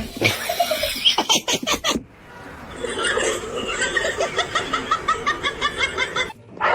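A person laughing, with a long run of quick, rhythmic laughter from about three seconds in that stops abruptly near the end.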